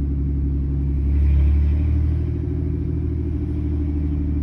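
Engine and road noise of a 2007 Dodge Dakota pickup, heard from inside the cab while driving. It is a steady low drone that swells briefly about a second in, then settles back.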